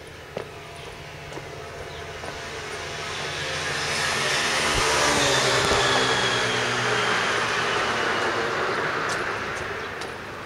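A vehicle passing by: a broad engine-and-rolling noise builds to its loudest about halfway through, then fades away.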